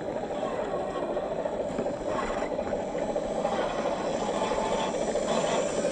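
Scale RC crawler (RC4WD Trail Finder 2 with a 550 brushed electric motor) driving over loose gravel: the motor and geared drivetrain run steadily while the tyres crunch and rattle on the stones.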